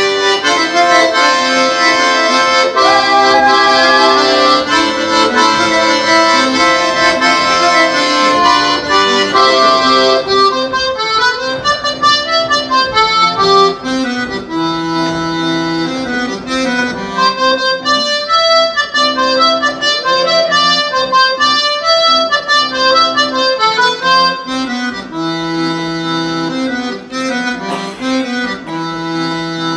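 Accordion playing a Breton dance tune: a steady melody over repeated bass notes, the playing getting sparser about ten seconds in.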